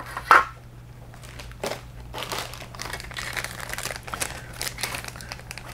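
Clear plastic kit bags crinkling and crackling as molded plastic model parts are pulled out of them, in irregular rustles with a sharp crackle about a third of a second in.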